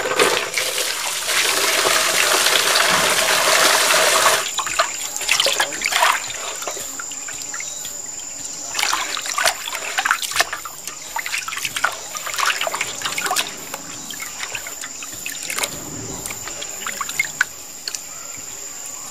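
Water running steadily into a metal basin for about four seconds, then hands sloshing small roots about in the water, with repeated splashes and dribbles as handfuls are lifted out and let fall back.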